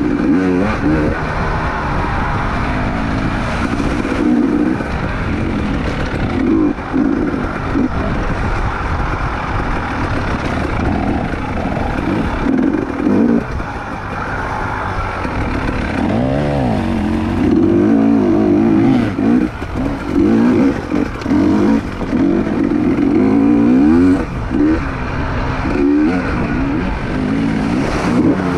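Trail motorcycle engine running under load, revving up and down again and again as the throttle is opened and closed, with short drops in loudness between pulls.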